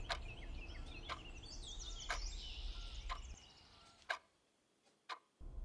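Faint soundtrack ambience of birds chirping over a clock ticking about once a second. The birdsong and background hush fade out about three and a half seconds in, leaving only the ticks.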